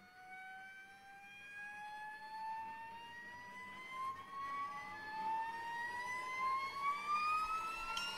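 Opening of a symphonic progressive rock track: one sustained tone gliding slowly upward in pitch by about an octave and growing steadily louder.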